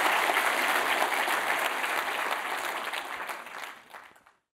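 Audience applauding, fading out about three seconds in and cutting to silence just before the end.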